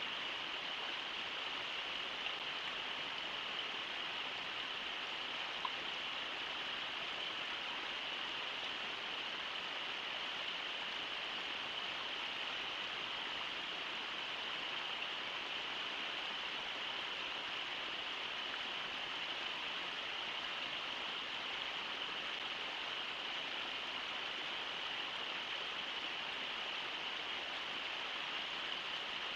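Steady rush of the Brooks River running over shallow rapids, an even, unbroken sound.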